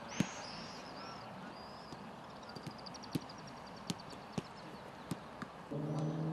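Outdoor training-pitch ambience with a few sharp single thuds of footballs being kicked, spaced irregularly, and small high chirping bird calls, including a quick trill in the middle. Near the end a steady droning hum with overtones starts and grows louder.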